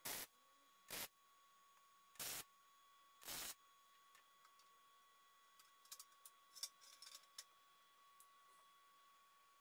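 Tack welding with an electric arc welder: four brief bursts of arc crackle, roughly a second apart, in the first few seconds, then a few faint clicks of metal, over a faint steady high hum.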